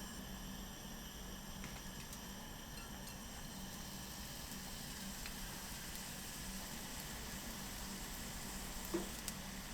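Food sizzling in a frying pan, a steady fine crackle, with two short sharp clicks near the end.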